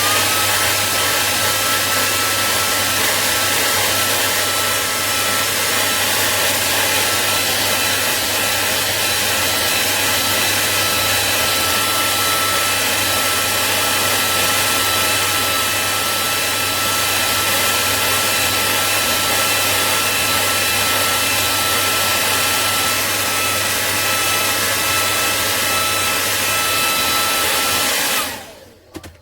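Hot-air blower running steadily with a thin high whine over the rush of air. It is heating a phone's back cover to soften the adhesive so the cover can be opened. It switches on at the start and cuts off shortly before the end.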